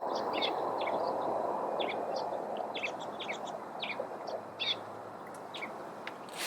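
Small birds chirping in short, scattered calls over a steady rushing background noise.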